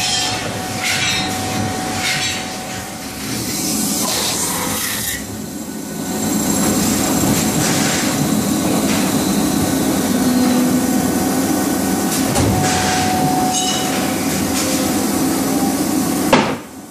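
Industrial noise from a robot-loaded Leifeld metal spinning machine at work: a steady mechanical din with scattered knocks, and one sharp knock shortly before the end.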